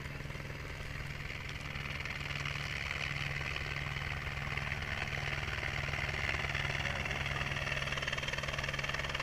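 Helicopter approaching, its engine and rotor sound growing gradually louder.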